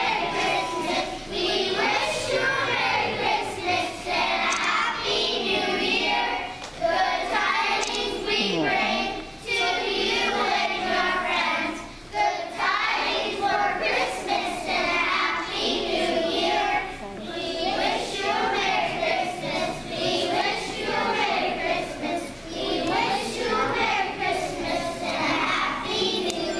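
A group of young children singing a song together, line after line with short breaks between phrases.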